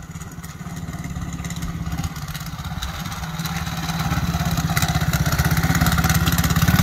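Small engine of a youth ATV (quad) running at low speed, growing louder about three seconds in as the quad comes up close.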